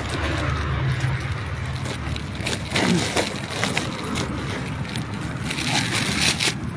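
Street traffic rumbling steadily, with short scratchy rustles close to the phone's microphone a few times.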